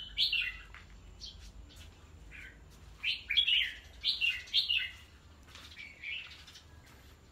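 Red-whiskered bulbuls calling in short, high chirping phrases, with a burst of several quick calls about three to five seconds in.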